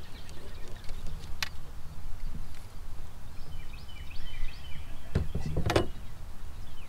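Outdoor wind rumble on the microphone with a few short bird chirps, then a clatter about five seconds in as the landing net holding a blue catfish is handled on the boat's deck.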